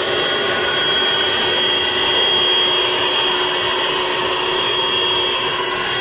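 Air blower running steadily with a high whine, blowing air into the harvester's diesel engine to force the old engine oil out of the drain faster.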